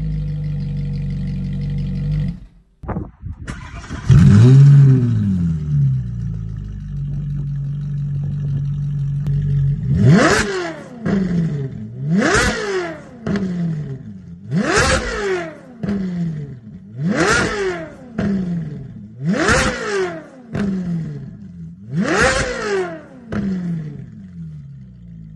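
Ferrari 458 Italia's V8, fitted with 200-cell high-flow catalytic converters, idling and then revved. There is one rev about four seconds in, then six quick throttle blips about every two and a half seconds, each rising and falling sharply before it drops back to idle.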